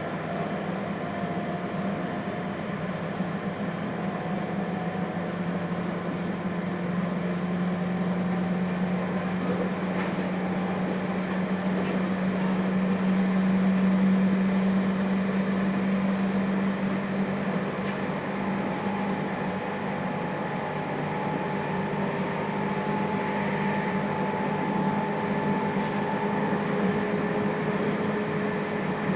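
Running sound of a JR Hokkaido 721 series electric multiple unit with thyristor phase control, heard inside its KuMoHa 721 motor car: a steady rumble with a strong low hum. Faint motor whine tones slowly rise in pitch.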